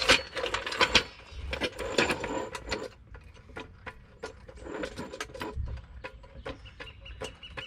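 Jack being worked under the rear lower control arm, a run of metallic clicks and knocks, to lift the arm and take pressure off the coil spring.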